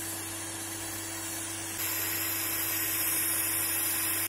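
Steady, loud hiss of pressure venting through the opened ball valve on a Fansel Mini steam autoclave's lid, growing louder and brighter about two seconds in. This is the pressure left in the vessel being released after the sterilising cycle.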